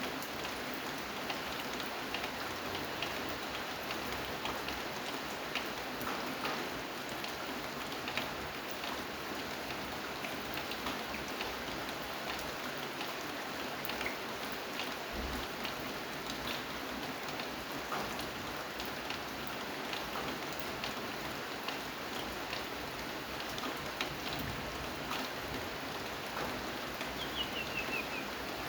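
Steady rain falling, with many individual drops ticking on a surface throughout.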